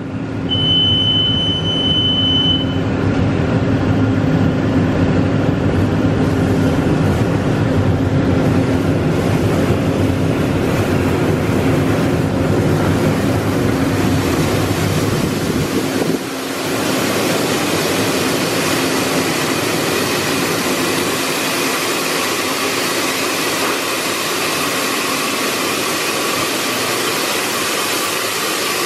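Automatic car wash bay: the dryer blowers running at idle, a steady loud rush of air with a deep rumble, and a brief high beep about half a second in. About 16 seconds in the deep rumble drops away, leaving a steady hiss as water sprays over the car.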